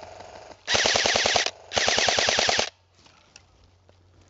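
Two short bursts of full-auto fire from an airsoft electric rifle, each just under a second long, with a rapid even chatter of about a dozen shots a second.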